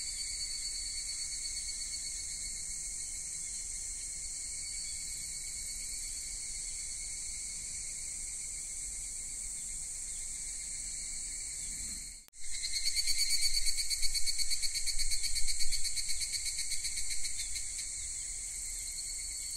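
Insects chirping in a steady, high-pitched chorus. About twelve seconds in the sound drops out for a moment and comes back louder as a fast, even pulsing trill for about five seconds, then settles back to the steady chorus.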